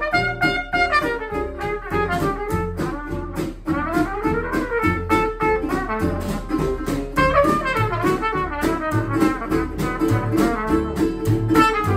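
Small traditional jazz band playing a swing tune: a cornet carries the lead melody over steady strummed guitar chords on the beat and a moving bass line.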